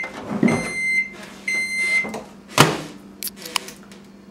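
Microwave oven beeping: long, steady beeps about a second apart, then a loud clunk a little after half-way, over a low steady hum.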